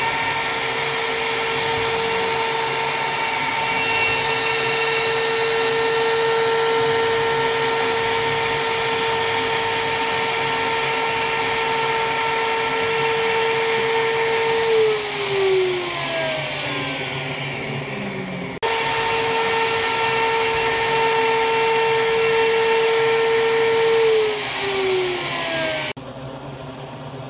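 Inventables CNC router spindle whining at a steady high speed while its bit engraves a wooden block, then spinning down with falling pitch. After an abrupt cut the same steady whine resumes and winds down once more, and near the end only a quiet background remains.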